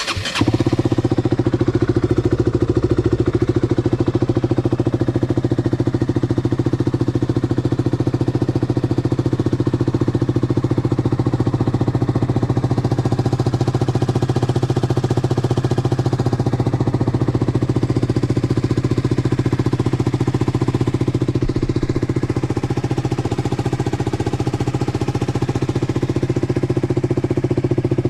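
KTM RC's single-cylinder engine fires up at the very start and then idles steadily with a fast, even beat.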